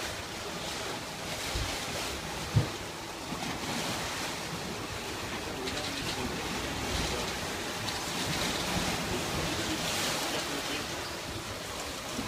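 Sea water rushing and splashing past the hull of a boat under way, with wind. A single short thump about two and a half seconds in.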